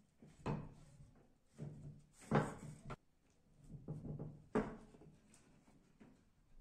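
Wooden swing parts being handled on a wooden workbench: a series of about five wooden knocks and scrapes as the curved side boards are set against the slatted seat, the loudest a little past two seconds in.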